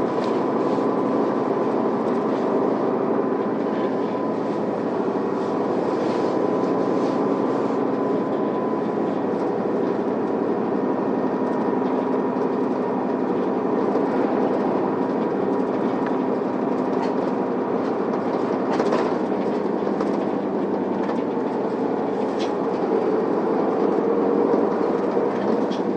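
Isuzu Elga city bus heard from inside the cabin while driving: steady engine and road noise with a faint whine, and a few short rattles or ticks along the way.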